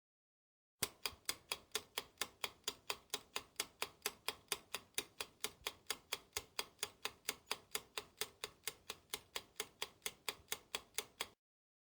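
Clock ticking sound effect: even, sharp ticks at about three and a half a second, starting abruptly about a second in and stopping abruptly just before the end, with dead silence around them.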